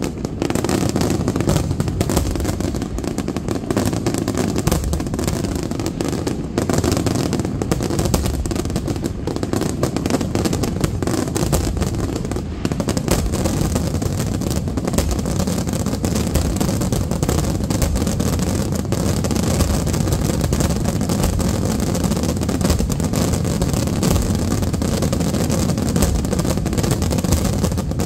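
Aerial fireworks shells bursting in a dense, unbroken barrage: rapid overlapping bangs merge into a continuous low rumble, with sharper cracks on top.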